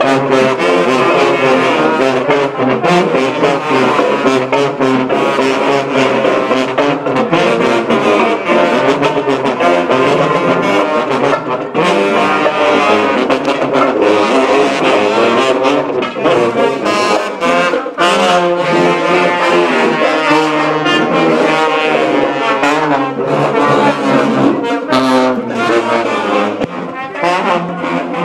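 A high school band's tuba section plays a loud, driving tune with baritone, tenor and alto saxophones and a trombone. A tenor drum beats under the low brass line.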